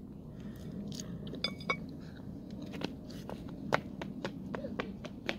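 Someone eating fried chicken wings: irregular crisp bites and crunches while chewing.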